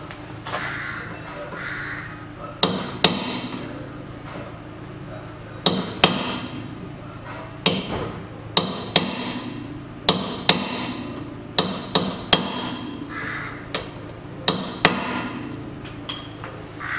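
Steel hammer blows on a punch held against the rear hub nut of a VAZ 2110, about fifteen sharp metallic strikes at uneven intervals, often in quick pairs, each with a brief ring. This is the staking of the nut's collar into the groove of the axle stub to lock it.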